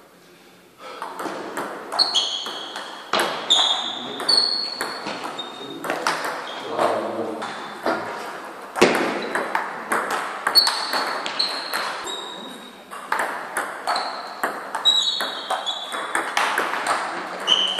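Table tennis rallies: the ball clicking off the bats and pinging on the table in quick back-and-forth exchanges, starting about a second in.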